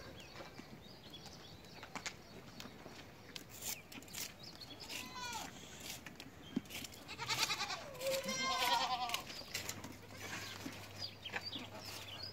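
Goats bleating: a short call about five seconds in, then a longer, louder bleat with a quavering pitch from about seven to nine seconds in. A few scattered knocks come in between.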